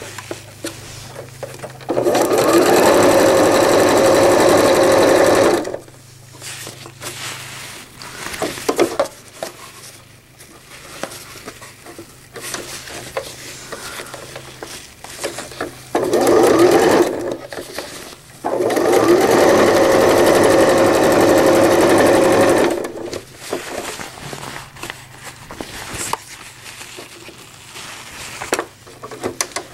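Electric sewing machine stitching a zipper onto PUL fabric in runs of a few seconds: three runs, the longest about four seconds. Between the runs the machine stops and there are quieter clicks and rustling as the fabric is repositioned, and the machine starts again right at the end.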